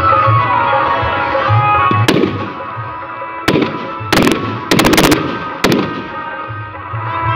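Fireworks going off in sharp bangs over Indian festival music. One bang comes about two seconds in, then a rapid string of cracks follows over the next two seconds or so.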